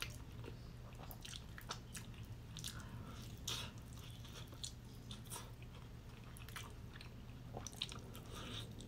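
Close-miked biting and chewing of crispy KFC fried chicken: many small irregular crunches and mouth clicks, over a steady low hum.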